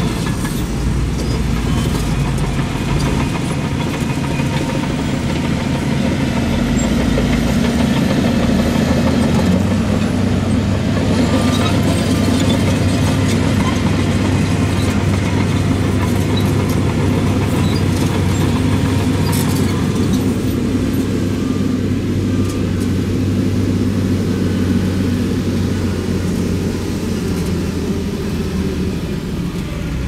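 Heavy earthmoving machine's diesel engine running steadily. Its note shifts and settles about ten seconds in, then eases off slightly near the end.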